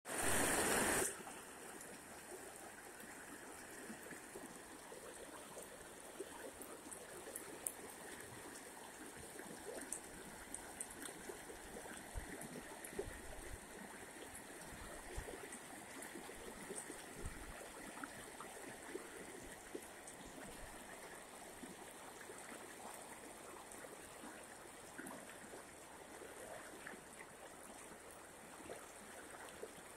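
Muddy floodwater flowing fast over flooded paddy fields, a steady rushing hiss with small splashy ticks. A loud burst of noise fills the first second.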